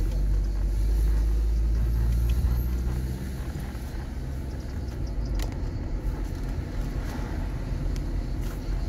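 A Mercedes car driving, heard as a low engine and road rumble. The rumble is loudest for about the first three seconds as the car pulls out of a roundabout, then eases as it cruises along the straight.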